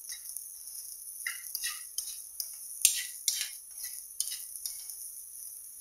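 Chopped green beans sizzling in butter in a non-stick frying pan, stirred with a metal spoon that scrapes and taps the pan several times over a steady hiss, the sharpest stroke about three seconds in.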